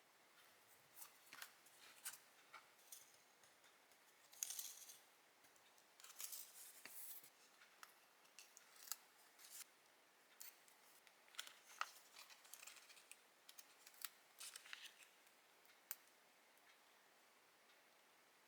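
Scissors cutting paper: faint, irregular snips and clicks, with short rustles of paper being handled.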